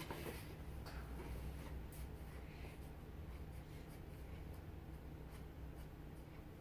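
Faint scratching and rustling of foam toy pieces being handled and moved about, with a few light clicks, over a steady low hum.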